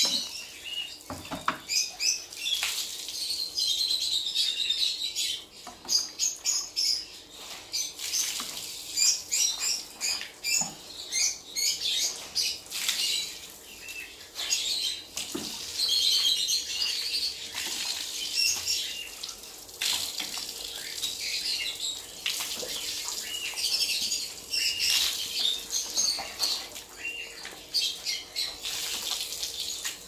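Water running and splashing as palm fronds are rinsed, with small cage birds chirping constantly throughout.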